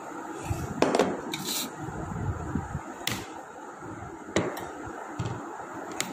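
Eating at a table: a few sharp clicks and knocks of dishes and bowls being handled, with low rustling between them.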